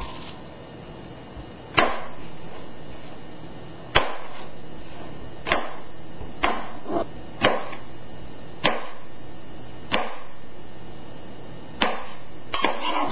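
A chef's knife slicing small tomatoes on a plastic cutting board, the blade knocking sharply on the board about a dozen times at an uneven pace, one to two seconds apart.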